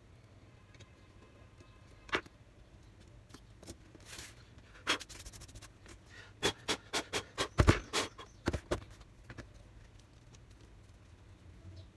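Sharp clicks and taps of a laptop's plastic parts being handled during disassembly: a few scattered ones, then a quick run of about ten past the middle, with one heavier knock among them.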